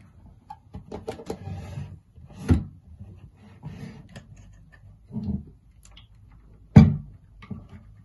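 Hard plastic humidifier water tank and base being handled: scattered clicks and knocks with a dull thud a few seconds in. The loudest, a single sharp knock, comes near the end.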